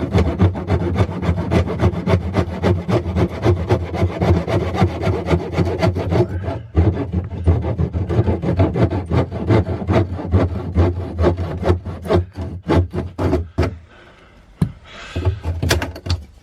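Corded reciprocating saw running and sawing through PVC pipe in rapid strokes, then stopping about fourteen seconds in as the cut goes through.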